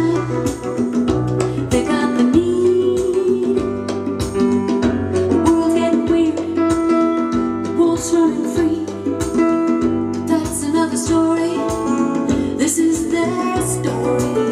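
Music: a song with plucked guitar and singing over a steady percussive beat.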